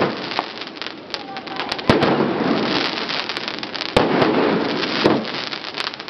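Aerial fireworks bursting overhead: four sharp bangs, roughly one every one to two seconds, each followed by a hiss thick with many small pops as the bursts spread into glittering sparks.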